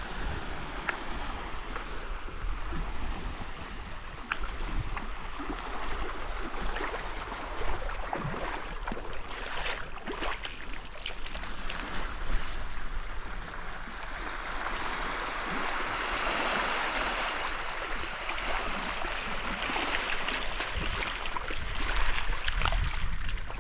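Small waves washing and lapping over a shallow rocky shore, a steady wash that swells louder for several seconds after the middle, with wind rumbling on the microphone.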